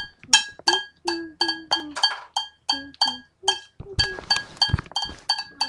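A drum beat tapped out on improvised hard percussion: sharp hits about three a second, each with a short clinking ring, with a short break partway through.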